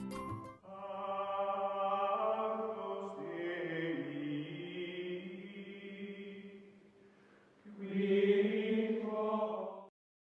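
Slow music of long held, sustained tones in two phrases: the first fades out about seven seconds in, and a second, louder one starts soon after and cuts off abruptly near the end.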